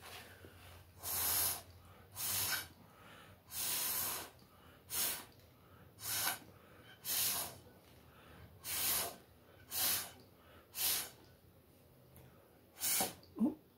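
Short puffs of blown air, about a dozen at roughly one a second, pushing wet acrylic pour paint across the canvas in a Dutch pour. A short rising squeak comes near the end.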